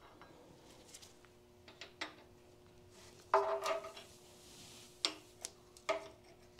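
A steel hand tool clanking against the cast-iron transmission case and shift-rail parts. There are four sharp metal clanks, the loudest about halfway in, and each leaves a short metallic ring.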